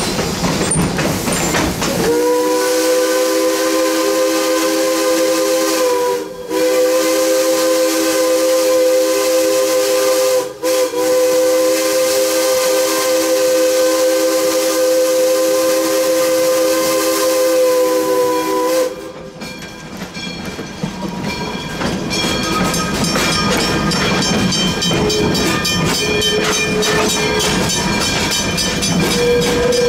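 Lunkenheimer three-chime steam whistle on PRR B4a 0-6-0 No. 643 sounding one long blast of about seventeen seconds, starting about two seconds in, with two split-second breaks. Around it the locomotive rolls along with rattling, clicking running noise.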